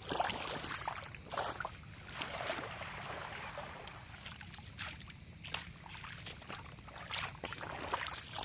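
A person wading in waders through a shallow pond and sweeping a dip net through the water: irregular splashing and sloshing, in short uneven bursts.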